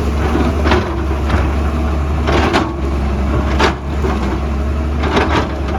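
Excavator's diesel engine running steadily with a low hum, broken by about five short, sharp scraping knocks as the bucket works rock and soil.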